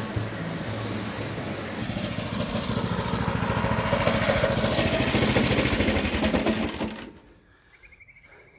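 Petrol reel mower with a groomer attachment running through a grooming pass, a fast, even engine pulse that grows a little louder, then fades out about seven seconds in.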